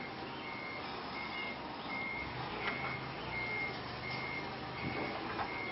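Forklift's warning beeper sounding a steady series of short high beeps, about one every 0.7 seconds, over a faint low hum.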